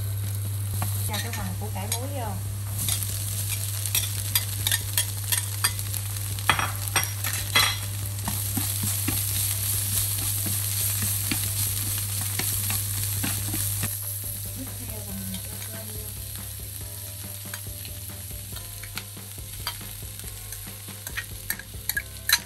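Butter and strips of salted radish sizzling as they fry in a nonstick pan, with a utensil stirring and clicking against the pan. The frying is loudest for the first dozen seconds or so, then quieter, over a steady low hum.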